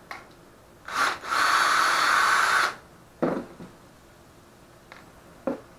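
Cordless drill-driver running on a screw in wooden pieces: a short blip about a second in, then a steady run of about a second and a half that stops abruptly. Two short knocks follow, the first just after the drill stops.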